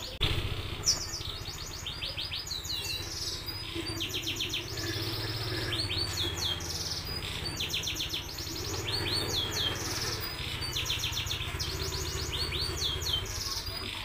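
Domestic canary singing: fast rolling trills of rapidly repeated high notes, alternating with swooping notes, phrase after phrase with short pauses between.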